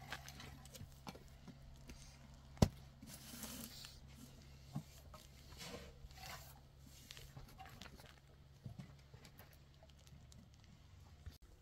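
Faint handling sounds of a baby's formula bottle being made up: small clicks and clinks of a glass, a formula tin and a plastic bottle, with brief pouring or scooping hiss. A single sharp click about two and a half seconds in is the loudest sound, over a low steady hum.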